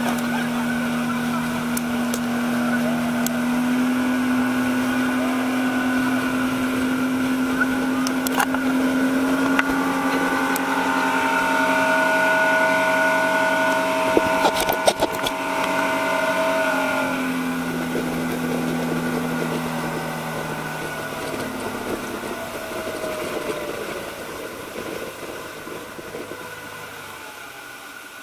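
Small ferry boat's engine running hard at speed with water rushing along the hull. In the second half its pitch steps down twice and it fades as the boat throttles back.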